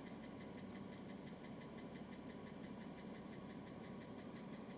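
BMW Z4 3.0si's N52 inline-six engine running with a rapid, even ticking knock. The knock persists after the lifters were replaced, and the owner hopes a cylinder head replacement will cure it.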